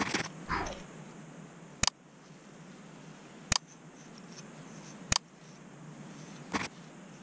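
Plastic comb scraping and scratching flakes off the scalp at the hairline, with sharp short clicks about every second and a half.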